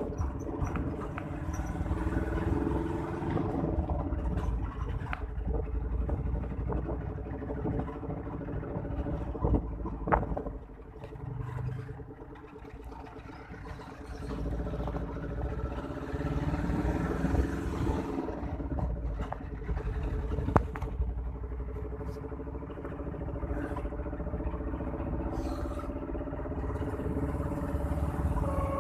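Engine and road noise heard from aboard a moving vehicle: a steady engine hum over a low rumble, with a few sharp knocks and rattles and a quieter stretch about eleven to fourteen seconds in.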